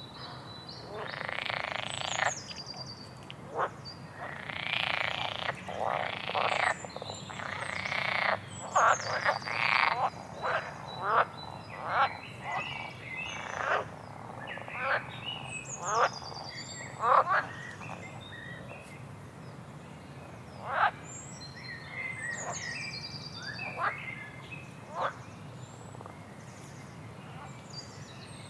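A small songbird singing: a long irregular run of harsh, rasping notes mixed with high, thin chirps that slide downward, most of them in the middle of the passage and sparser near the end.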